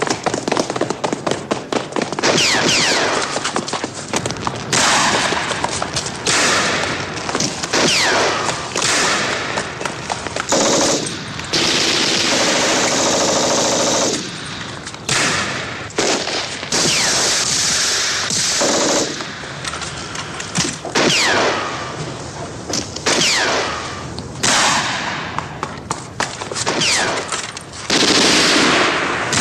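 Battle sound effects of a gunfight: repeated bursts of machine-gun fire mixed with single shots. Several brief falling whines, like bullets ricocheting, sound between the bursts.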